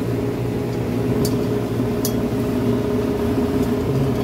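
A ratchet wrench clicks twice, about a second and a half and two seconds in, as it turns a refrigeration compressor's service valve stem, over a steady machine hum.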